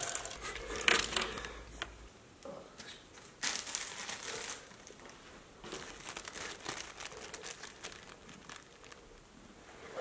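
Rustling and crinkling handling noise in irregular bursts as hands fold and arrange a towel on a bed pillow.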